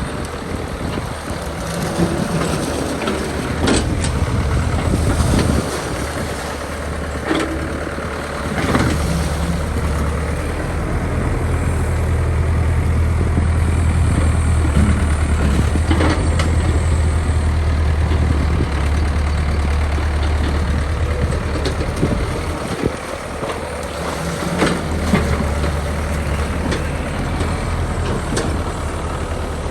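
Mini excavator's diesel engine running, working harder for about ten seconds in the middle, with a few sharp knocks of machine work.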